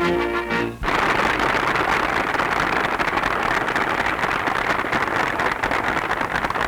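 Music cuts off under a second in, then a loud, even crackling hiss carries on.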